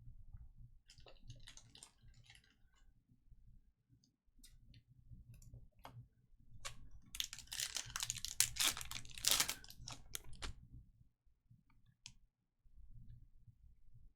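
Trading cards and packs being handled at a table: scattered light clicks and taps, with a denser run of rustling and clicking from about seven to ten seconds in.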